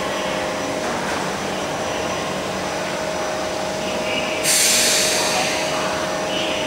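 Kawasaki C151 metro car standing at a platform: steady interior hum and rumble of its equipment and ventilation, with a faint steady tone. About four and a half seconds in comes a sudden loud hiss of compressed air from the train's pneumatics, which fades over a second or so.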